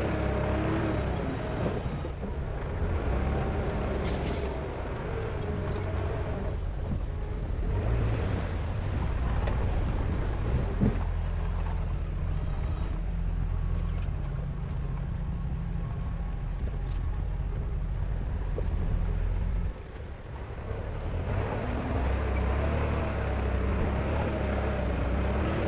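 Heavy diesel earthmoving machinery running under load, its engine note wavering up and down. Partway through it settles to a steadier drone and drops off briefly about twenty seconds in before working again. There is a single sharp knock about eleven seconds in.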